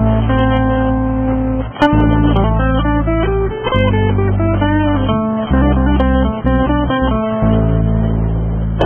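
Background music led by guitar over a steady bass line, the chords changing about every two seconds.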